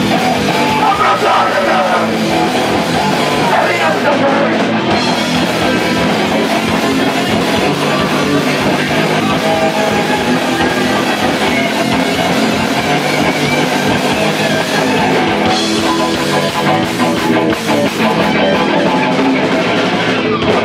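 Hardcore punk band playing live and loud: distorted electric guitars, bass guitar and drum kit.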